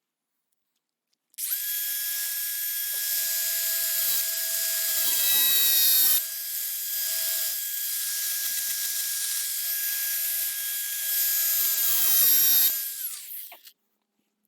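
Small high-speed power tool cutting the gate latch's rods to length, running with a steady high whine. It gets louder twice as it bears into the cut, then winds down with a falling pitch near the end.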